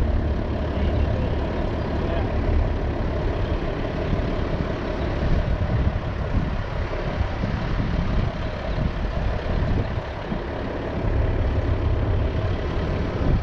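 Flatbed truck's engine idling steadily with a low rumble.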